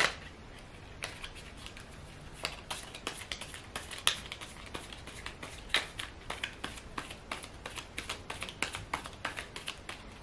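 A tarot deck being shuffled by hand: a string of soft, irregular card flicks and taps, a few louder than the rest.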